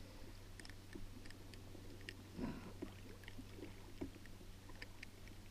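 Faint scattered clicks and soft rustling of hands handling a freshly caught cero mackerel and its soft-plastic paddle-tail lure at close range, with a somewhat louder rustle about two and a half seconds in.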